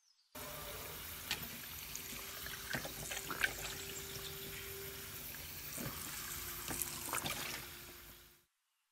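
Tap water running and splashing onto raw beef cubes in a plastic colander, with scattered sharper splashes and a faint steady tone under the flow. It starts suddenly just after the start and fades out near the end.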